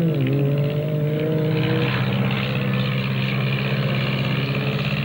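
Steady engine drone, its pitch wavering up and down over the first two seconds, then running evenly with a rougher edge: a light single-engine propeller plane flying low overhead.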